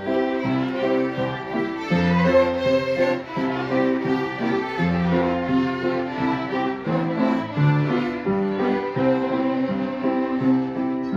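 Several fiddles playing a tune together, with some low held notes underneath.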